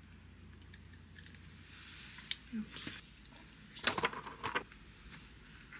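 Hair and styling tools being handled: a curling iron let go and a velcro hair roller pulled out of the bangs, then hands shaking out the hair. It comes as soft rustles and clicks, with a louder run of crackling about two-thirds of the way through.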